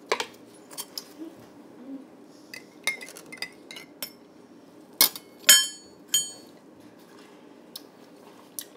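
Metal spoon clinking against a glass, a dozen or so irregular taps; the loudest, a little past the middle, leave the glass ringing briefly.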